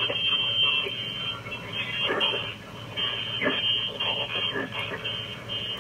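Receiver audio from the HamSphere computer ham-radio program playing through computer speakers: hiss and crackle with a few short swells, thin-sounding with the top cut off, over a steady low hum.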